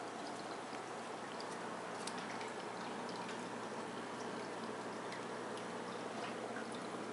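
AquaClear hang-on-back aquarium filter's outflow trickling steadily into the tank water, with faint scattered ticks.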